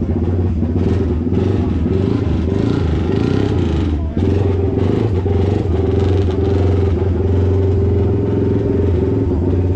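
A motorcycle engine running steadily nearby, with people talking in the background.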